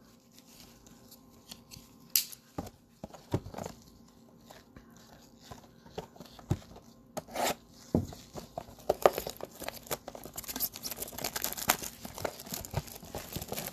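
Plastic shrink wrap being torn off a trading-card blaster box: a few scattered snaps and clicks, then from about nine seconds in, dense steady crinkling of the plastic.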